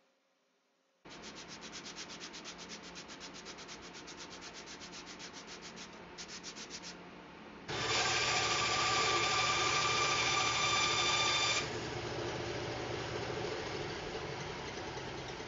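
Sandpaper rasping on strips of Caribbean rosewood and wenge to bring them down to thickness. It begins about a second in as quick, even back-and-forth strokes, then after a short break becomes a louder, steady rasp with a few faint held tones, and eases to a quieter rasp near the end.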